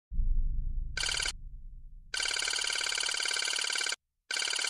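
Low boom that fades over about two seconds, then an electronic beeping sound effect for text appearing on a computer terminal: a bright, rapidly pulsing trill like a phone ring. It comes in bursts, a short one about a second in, a long one lasting nearly two seconds, and another starting near the end.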